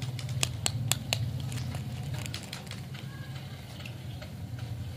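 A plastic lollipop wrapper crinkling and crackling in the fingers, with several sharp crackles in the first second and softer rustles after that, over a steady low hum.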